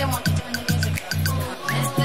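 Upbeat background music with a steady beat: a bouncing bass line and crisp percussion ticks.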